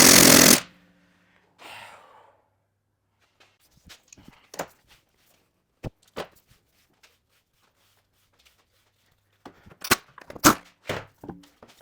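A power tool runs loudly and cuts off about half a second in, followed by scattered sharp clicks and knocks, bunched up near the end, as tools and parts are handled in a workshop.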